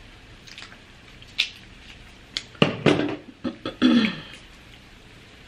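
Scattered sharp clicks and cracks of a crab cracker and fork working on king crab legs, with a short throaty, cough-like vocal sound about three seconds in.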